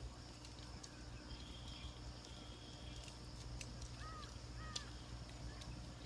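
Faint outdoor ambience: a steady high insect drone, two short arched bird calls about four and five seconds in, and a few light clicks as tent poles are handled.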